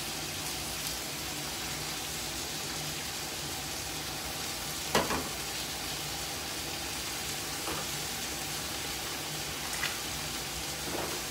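Steak frying in a pan, a steady sizzle, with a few light clicks and taps from a small bowl and squeeze tube being handled.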